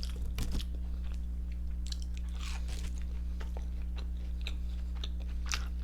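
Close-miked chewing and biting with scattered crisp crunches of fried fast food, over a steady low hum.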